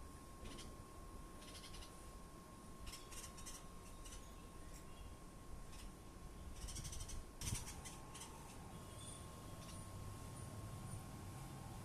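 Mynas calling in short, high, scratchy bursts, about eight times, the loudest about seven and a half seconds in. A faint steady hum runs underneath.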